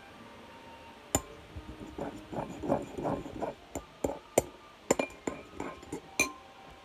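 A utensil clinking and knocking against a container while slime ingredients are mixed, with scraping and stirring sounds between the sharp clinks.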